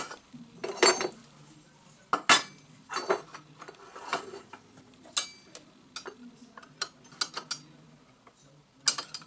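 Aluminium extrusion pieces and brackets handled against each other and a steel plate, clinking and knocking in scattered, irregular clicks, several of them ringing briefly.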